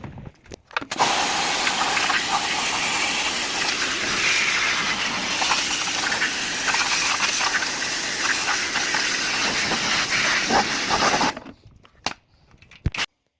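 Pressurised water spray hissing steadily while washing a top-loading washing machine's tub, lasting about ten seconds and cutting off suddenly, followed by a couple of sharp clicks.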